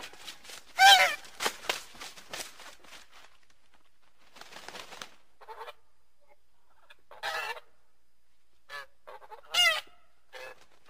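Goose honking in a string of separate calls, the loudest about a second in and again about two-thirds through, with softer honks between.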